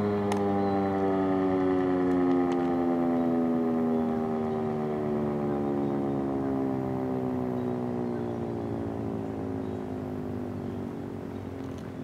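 American Signal Corporation RM-130 rotating outdoor warning siren winding down: a single pitched wail whose pitch and volume fall slowly and steadily as the rotor coasts down after the signal is cut.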